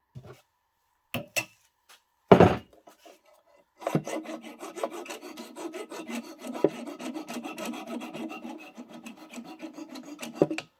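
A few short knocks, then from about four seconds in, rapid rasping of a file on a small metal rod, taking burrs and rust off a stuck traction-motor retaining rod.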